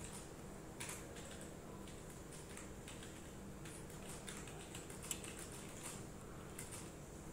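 Fingertip tapping on a nail printer's touchscreen: scattered, irregular light clicks over a faint steady hum.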